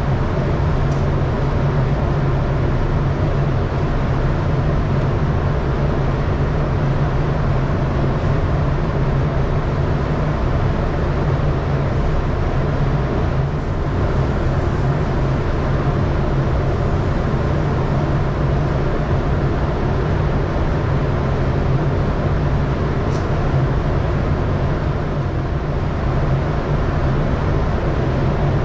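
Paint spray booth's ventilation fans running: a steady, loud low hum with an even rush of air.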